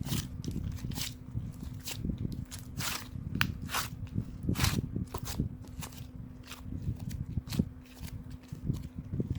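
Hands pressing, squeezing and poking soft clay slime, giving irregular squishy crackles and sharp little clicks, several a second, over a faint steady hum.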